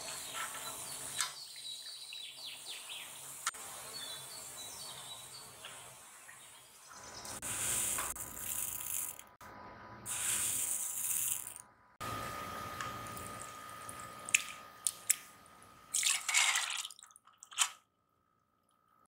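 Red split lentils being washed and soaked in a bowl: water poured and swished over them, with drips, in several short cuts, and a few sharp clicks and taps near the end.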